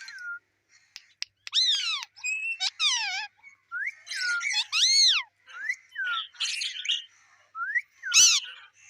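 A parrot giving a string of short squawks and whistled calls, many sliding up and then down in pitch, with brief pauses between them. A sharp, loud squawk comes near the end.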